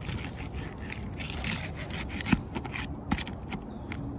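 Scraping and rubbing of roofing nails being worked out of asphalt shingles, with a few sharp clicks, the loudest a little past two seconds in and another about a second later.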